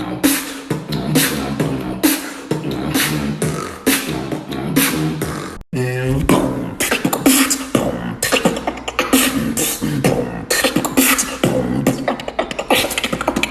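Human beatboxing: a steady rhythm of mouth-made drum sounds, sharp snare and hi-hat strikes over a low kick. It breaks off for an instant a little before halfway, then restarts with a short gliding pitched sound before the beat picks up again.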